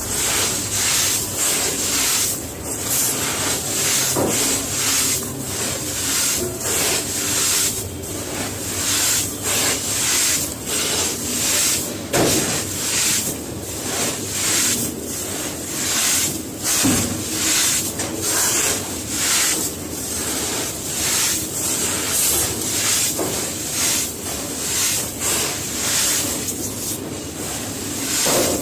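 Dry, gritty cement being crumbled into water, a crunchy, hissing texture that comes in quick, uneven strokes.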